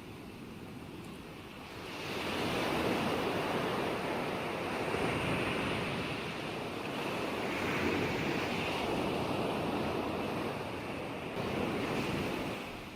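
Ocean surf: waves washing in a steady rush, quieter at first, swelling about two seconds in and easing off near the end.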